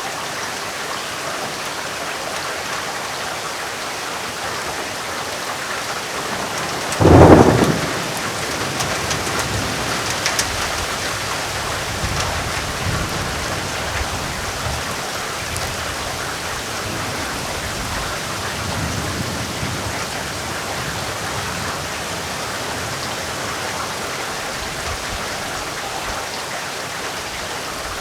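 Heavy rain falling steadily. About seven seconds in, a sudden loud crack of thunder, the loudest thing here, followed by low rumbling that fades away over the next several seconds.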